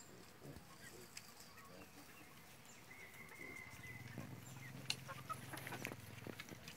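Chickens clucking faintly, with a few short clicks and rustles.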